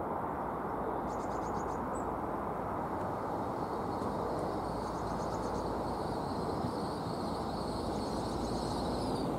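GWR Intercity Express Train (Class 800-series bi-mode) approaching on diesel power, with a steady low rumble of engines and wheels on rail growing slowly louder. Small birds chirp a few times over it.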